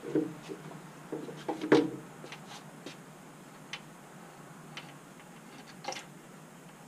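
Clinks and knocks of metal engine parts being handled inside a 6.4 Hemi block during teardown: a cluster of knocks in the first two seconds, the loudest just before two seconds in, a few faint ticks, and one more sharp clink about six seconds in.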